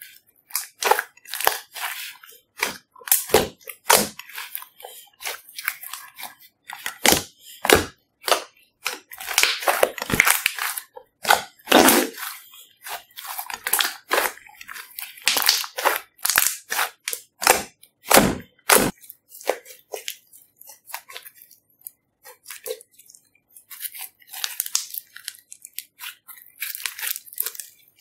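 Glossy slime squeezed and kneaded by hand, giving irregular wet pops and crackles. They come thick and fast for the first two-thirds, then thin out, with a short cluster again near the end.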